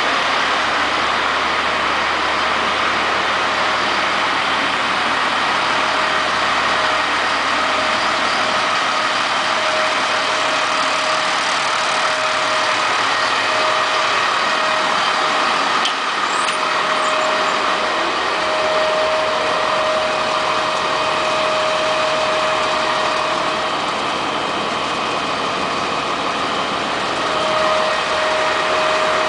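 American LaFrance Metropolitan fire engine idling, a steady, even engine noise with a thin whine that comes and goes.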